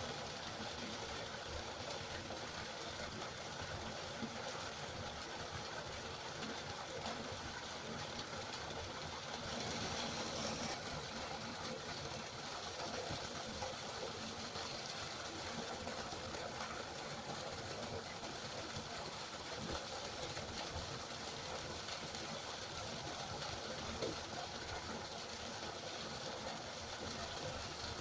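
River water flowing, a steady rushing with no break, swelling slightly about ten seconds in.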